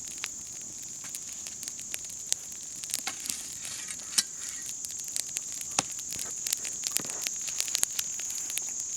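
Outdoor wood fire burning on a tree stump and brush, crackling with irregular sharp pops and snaps, over a steady high chirring of crickets.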